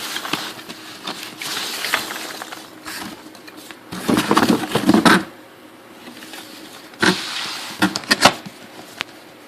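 Foam packing peanuts and packaging rustling and crackling as they are handled and dug through, with a louder stretch of rustling about four to five seconds in and a few sharp clicks and knocks near the end.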